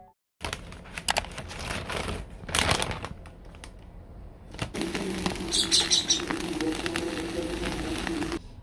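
Plastic laundry-detergent pouch crinkling and rustling as it is handled, with sharp crackles. About five seconds in, a steady low hum starts under the rustling.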